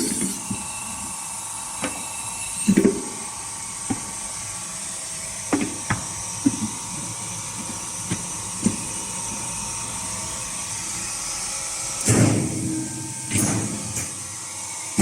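A hydraulic hot plate plastic welding machine running with a steady hum, with scattered sharp clicks and knocks, then louder clunks and rattles from about twelve seconds in as parts of the machine move.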